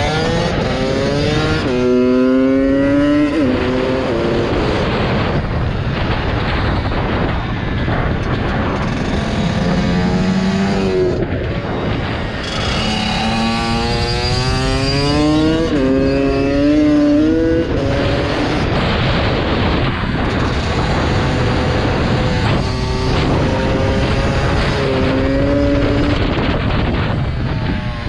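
Pit bike engine revving hard as it accelerates, its pitch climbing and dropping back at each gear change, in several runs with the throttle eased off between them.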